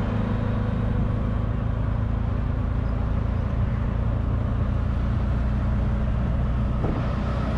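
Auto rickshaw's small engine running steadily while under way, heard from the passenger seat inside the open cab.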